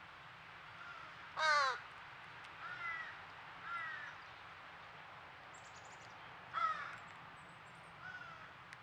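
American crow calls, the begging cries of a fledgling crow: about five separate calls, the loudest about a second and a half in and another loud one past the middle.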